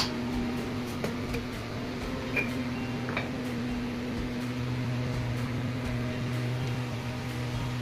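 Steady low mechanical hum of a kitchen appliance, a little stronger from about four and a half seconds in, with a few light clinks as a glass jar and pots are handled at the stove.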